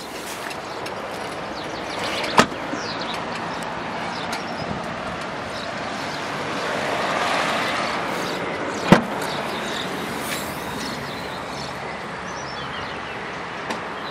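A Skoda Fabia's door shuts with a thump about two seconds in, and its tailgate latch releases with a sharp click about nine seconds in, over steady outdoor traffic noise that swells for a few seconds midway.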